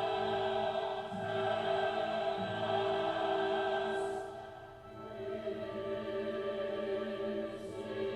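Choral music played back from reel-to-reel tape on an Akai GX-266 II deck: a choir singing long held notes, with a short lull about four and a half seconds in.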